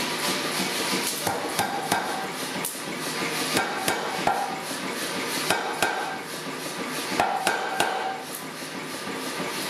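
Power hammer running and striking a glowing bar of H13 tool steel as it is drawn down. About a dozen sharp blows come at uneven spacing, some followed by a short metallic ring, over the machine's steady running noise.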